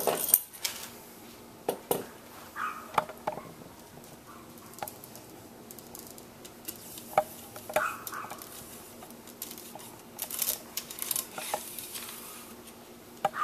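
Steel cleaning rod clinking and scraping in a Mosin-Nagant 91/30 rifle's bore as a patch soaked in Hoppe's No. 9 is pushed through. Scattered sharp metal clicks, with a few rasping strokes about ten seconds in.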